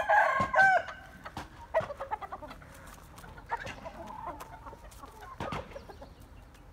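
Chickens calling: a loud burst of squawks in the first second, then scattered quieter clucks.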